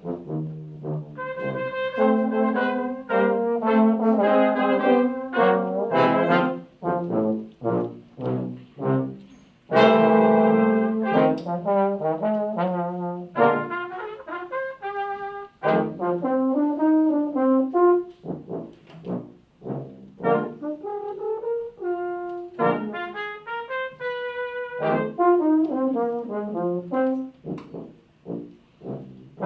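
Brass ensemble playing a piece in several parts, with trumpets among the instruments. It is mostly short, separated notes, with a loud full chord about ten seconds in and thinner moving lines after that.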